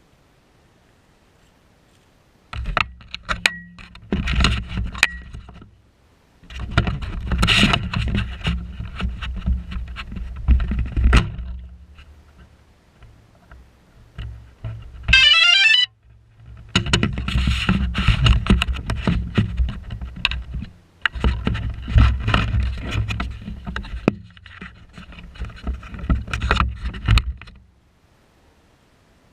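Bursts of low rumbling and crackling noise on the microphone, starting and stopping several times with near-silent gaps. About fifteen seconds in there is a short electronic melody of beeps lasting about a second.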